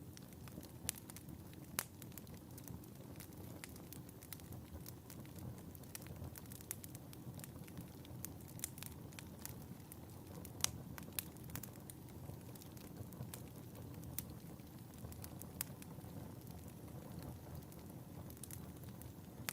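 Wood fire in a fireplace crackling, with irregular sharp pops and snaps over a steady low rumble of the flames. One pop a little past halfway through is louder than the rest.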